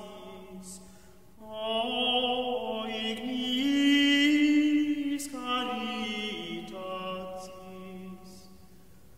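Slow meditative vocal chant: long held sung notes in unhurried phrases. It dips about a second in, swells to its loudest midway, then fades toward the end.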